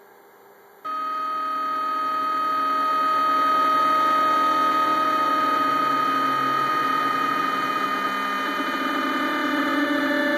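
Rostock Max delta 3D printer's stepper motors whining as the carriages drive the effector over the bed. The sound starts suddenly about a second in, with a few steady tones that slowly drift lower in pitch.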